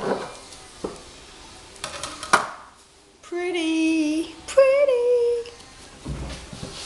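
A steel blade pushed down through a soap log in a wooden soap-cutting box, with a knock at the start and a sharp click about two and a half seconds in. Then a voice sings two held notes, the second higher.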